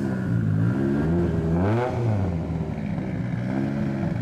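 Race car engine revved repeatedly on the throttle while the car stands still, its pitch climbing and falling several times, with the highest rev about halfway through.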